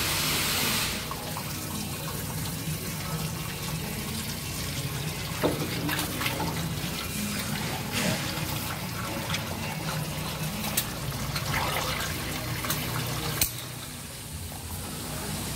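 Used engine oil pouring in a steady stream from a truck's oil-pan drain hole into a drain pan, with a louder rush in the first second as the plug comes free. A sharp knock comes near the end, after which the pour is a little quieter.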